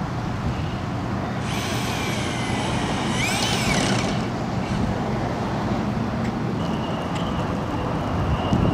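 Cordless drill whining for about two and a half seconds, its pitch slowly sagging under load as it drives a screw into plywood, then a quick rev up and back down. A steady low traffic rumble runs underneath.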